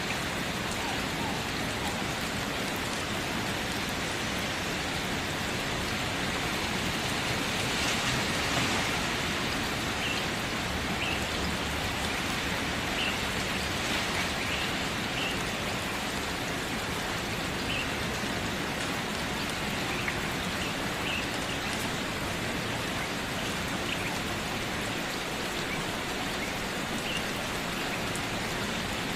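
Steady, even rain falling, a continuous hiss of drops that swells slightly about eight seconds in. A few faint, short, high chirps sound now and then over it.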